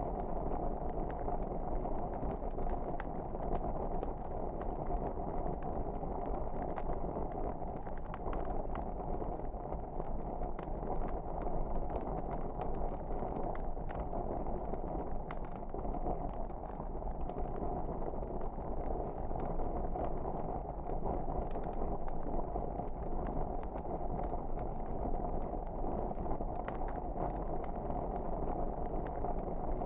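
Wood fire burning in a fireplace: a steady low rush of flames with scattered small crackles and pops.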